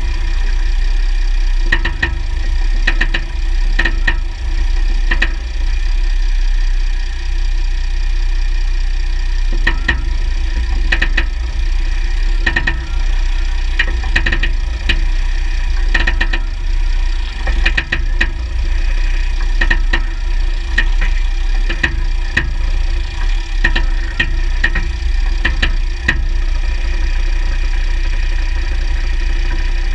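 Underside of a 2009 Jeep Grand Cherokee WK with the 3.0 CRD diesel running: a steady low drivetrain rumble crossed by many sharp clicks in irregular groups. The clicks point to an undiagnosed drivetrain fault, since driveshafts, front diff bushes and transfer case oil have already been checked.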